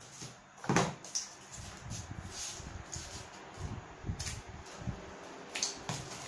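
Cardboard strips and a hot glue gun being handled and set down on a worktable: a sharp knock under a second in, then light irregular taps and scrapes.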